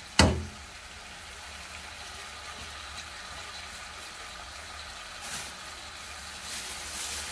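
Shishito peppers and dried anchovies sizzling steadily in oil in a frying pan, with one brief loud sound right at the start.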